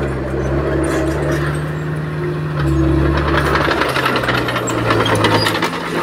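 Komatsu D20P crawler bulldozer's diesel engine running, its speed shifting a couple of times, with a dense rattle of metallic clanks building from about three seconds in.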